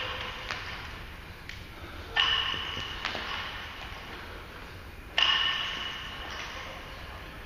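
Loaded barbell clanking during repeated lifts: two sharp metallic clanks about three seconds apart, each ringing out over a second or more, with smaller clanks between them.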